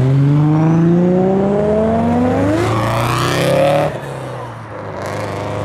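Turbocharged modified car accelerating hard away, its engine note climbing steadily for nearly three seconds and then revving higher briefly. The note drops off suddenly about four seconds in, and a steadier, lower engine note follows.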